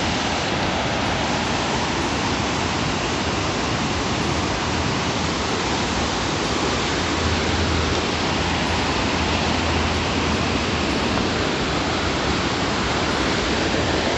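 Steady rush of river rapids on the James River, an even, unbroken sound of fast water.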